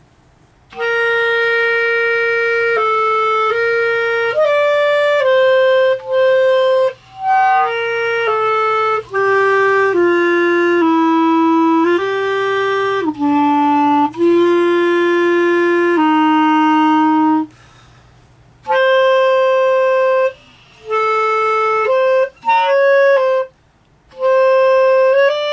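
Solo clarinet playing a slow slurred exercise of held notes that move stepwise down and then back up, part of a study that crosses the break between registers. There is a short pause for breath about two-thirds of the way through, and a few brief gaps between phrases near the end.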